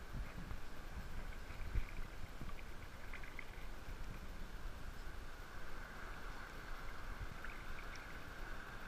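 Shallow seawater lapping and sloshing against a camera held at the surface, with irregular low knocks, the loudest about two seconds in.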